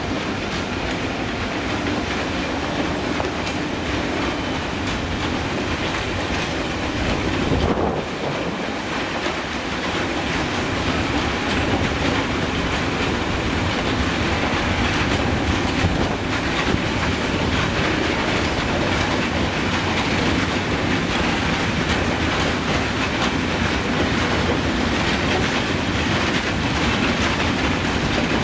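Freight train of hopper wagons passing, its steel wheels clattering over the rail joints in a steady run of rolling noise.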